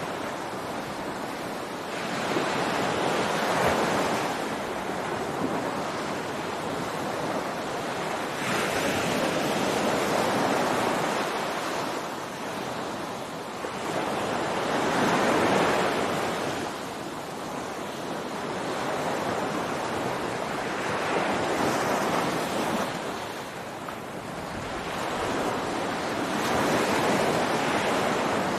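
Ocean surf breaking on a beach: waves swell and wash in roughly every five to six seconds over a steady hiss of water.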